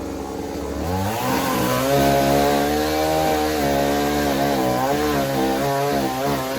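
Blue Max two-stroke gas chainsaw idling, then revved up about a second in and held at high speed, its pitch wavering and dipping near the end.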